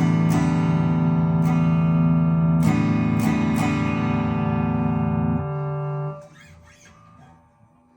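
Electric guitar played through a Stewmac Ghost Drive overdrive pedal: a few picked notes and chords ring out and sustain, then are cut off about five and a half seconds in, leaving only faint small handling noises.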